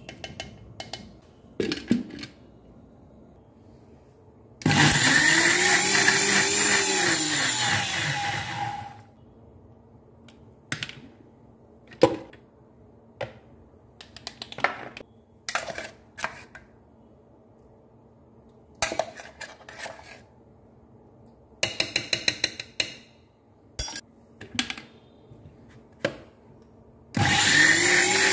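Sujata mixer grinder grinding tomatoes, red chillies and garlic into chutney paste. The motor runs for about four seconds, speeding up and then winding down, and starts again near the end. In between come scattered knocks and clicks of the steel jar and lid being handled.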